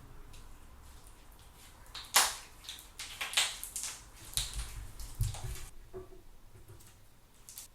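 Thick fluffy slime worked by hand, giving a run of sharp, wet pops and crackles lasting about four seconds, the loudest snap near the start.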